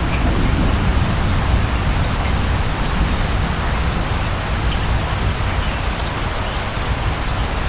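Steady rain: an even hiss with scattered faint drop ticks over a constant low rumble.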